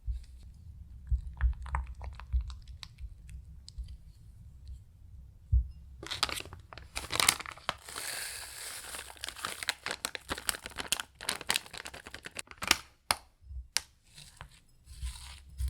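Plastic crinkling and tearing in a dense run of crackles and sharp ticks, starting about six seconds in after quieter handling and light clicks.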